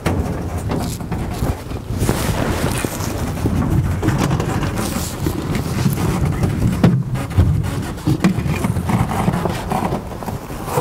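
Knocks, scrapes and rustling as a man squeezes into the cramped cockpit of a Piper L-4B Grasshopper, over a steady low rumbling noise.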